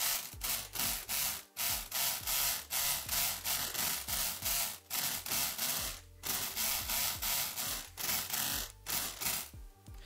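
Multipick Kronos electric lock pick gun running in a series of short buzzing bursts with brief pauses, its needle rattling the pins of a six-pin Yale Euro cylinder without getting it open.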